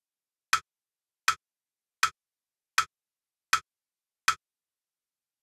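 Crotchet beat pulse: six sharp, evenly spaced metronome-like clicks, about three-quarters of a second apart (about 80 beats a minute), then they stop. It is the count-in before a cello extract for music dictation.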